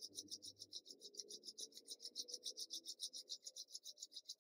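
Palms rubbing together, a soft, even rasping of about six strokes a second.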